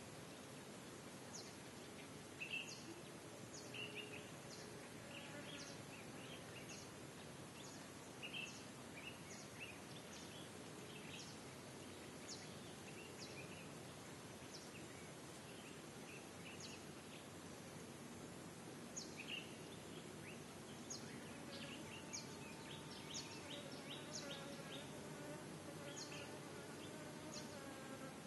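Faint steady background hiss with small birds chirping: short high chirps about once a second, coming thicker about two thirds of the way through.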